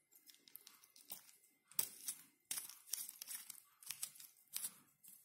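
Tail cap of a Maglite Mini AAA flashlight being screwed back on by hand against the strong battery spring: a series of short, faint, scratchy rasps as the threads and fingers twist the cap, about one every second or less.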